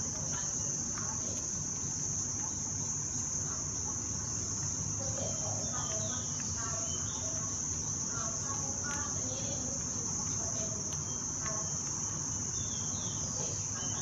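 A steady, high-pitched chorus of insects trilling without a break, over a low background rumble, with a few faint short sounds scattered through it.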